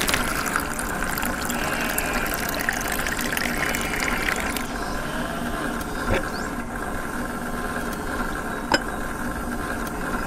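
A small electric motor running with a steady whine, with water running. Two sharp clicks come about six and nine seconds in.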